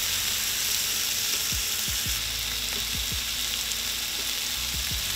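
Mahi-mahi fillets frying in melted butter in a nonstick pan, a steady sizzling hiss.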